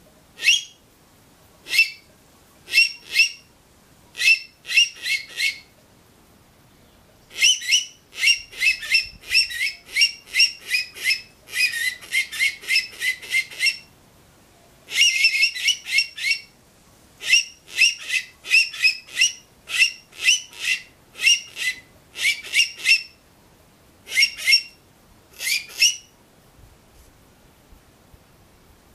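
Handmade aluminium mocó (rock cavy) call blown by mouth, imitating the rock cavy's call: short, sharp whistled squeaks in bursts of one to several, with longer runs in the middle that quicken into a rapid trill.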